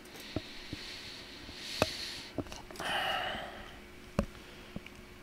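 Handling noise from a bare laptop motherboard and plastic chassis being picked up and moved: scattered light clicks and taps, the sharpest near two seconds in and again about four seconds in, with two short rustling noises in the middle.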